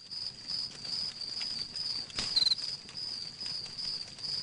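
Insects trilling steadily in a high, even, slightly pulsing chirr, with a faint click about halfway through.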